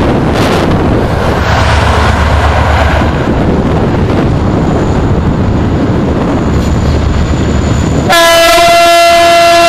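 Passenger train hauled by an EMD GT22CW diesel-electric locomotive approaching with a low, steady rumble. About eight seconds in, the locomotive's horn starts abruptly, a loud, steady blast that is held on.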